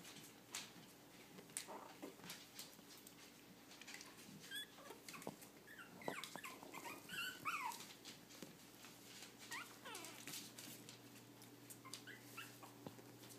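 Puppies playing, whimpering with a cluster of short, squeaky yips around the middle and a couple of falling squeaks a little later, over light scattered clicks and scuffles.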